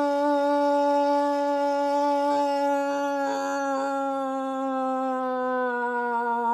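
A man's voice imitating a food processor's motor as it blends: one long hum held on a single pitch that sinks slowly lower.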